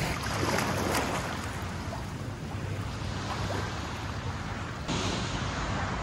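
Outdoor sea ambience: a steady wash of calm surf and wind, growing a little louder about five seconds in.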